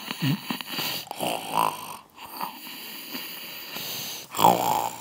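A person imitating snoring in short, pitched bursts, about four snores with pauses between them, the loudest near the end.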